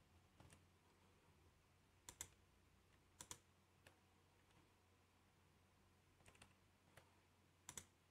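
Faint computer mouse clicks, short and sharp, about seven spread irregularly, several coming as quick pairs.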